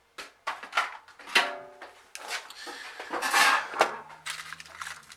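Small parts clicking and clattering as spare micro USB ports are handled and sorted through, with a louder rustling rummage about three and a half seconds in and a low steady hum near the end.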